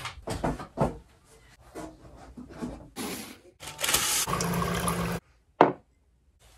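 Handling noises: a wooden easel knocked and scraped as it is set up, then a rustling as a sheet is pulled off a roll in its box, and one short knock near the end as a ceramic mug is set down.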